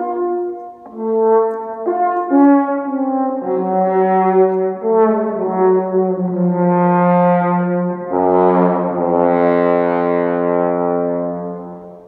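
Brass instruments playing long, overlapping held notes that stack into chords, with a deep bass note joining about eight seconds in before the sound fades out at the end.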